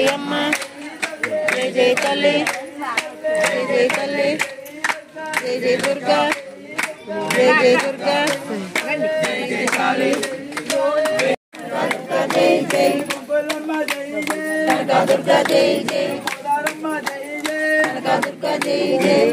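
A group singing a devotional song to rhythmic hand clapping. The sound drops out for an instant about eleven seconds in, then carries on.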